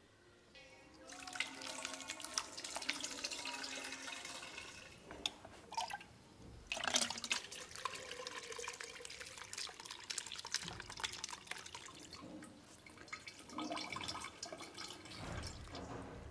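Homemade plum wine pouring and splashing from a steel vessel, with drips. It starts about a second in and breaks off briefly around five seconds in.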